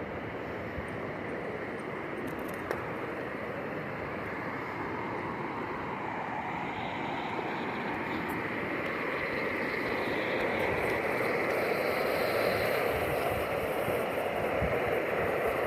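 Steady rushing of river water, a constant noise that grows a little louder in the second half.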